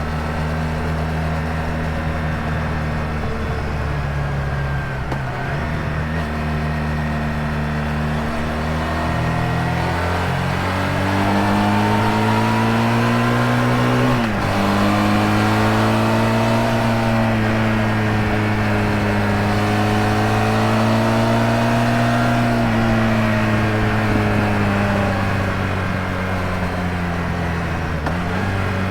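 Honda VF1000R's V4 engine running under way: steady at first, then rising in pitch, dropping suddenly about halfway through, then pulling up and easing off again.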